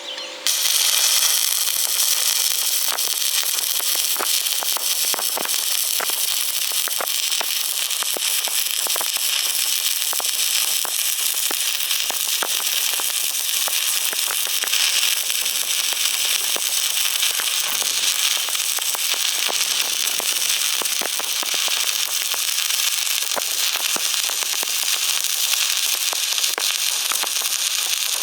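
Electric welding arc crackling and hissing steadily, with frequent sharp pops. It strikes about half a second in and cuts off suddenly at the end.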